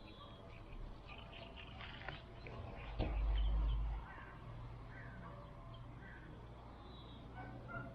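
Small birds chirping in short, scattered calls, with a low rumble on the microphone for about a second, three seconds in.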